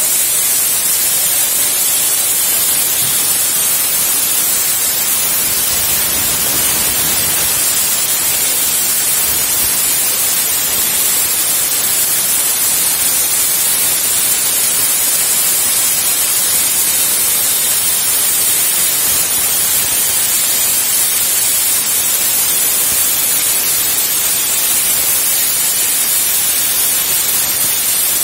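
Plasma torch of a CNC plasma cutting table cutting steel sheet: a loud, steady, high-pitched hiss that never breaks.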